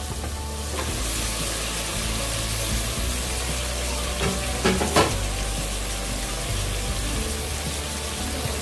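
Raw mutton pieces sizzling in hot oil with onions, tomatoes, garlic and ginger in an aluminium pressure cooker: a steady frying hiss as the meat starts to brown. A few light knocks sound about halfway through.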